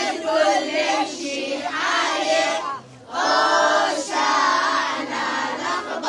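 A group of young children singing together in short phrases, with a brief break about three seconds in.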